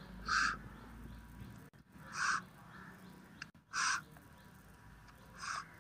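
A bird calling four times with short harsh calls, about a second and a half apart.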